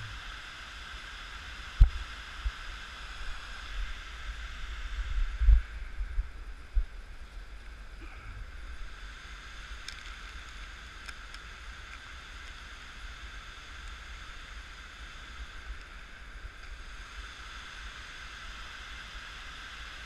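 Steady rush of a flowing river, with low wind rumble on the microphone and a few dull thumps in the first seven seconds.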